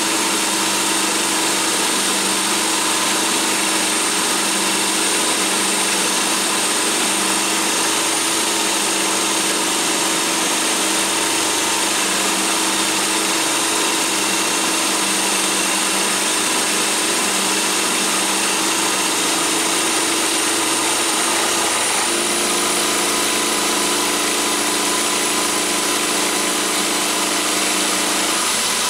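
Electric power drill running steadily as it drives a carbide end mill through a toolpost drill, milling 316 stainless steel: a constant motor whine over cutting noise. A low tone in the drone steps up slightly about two-thirds of the way through.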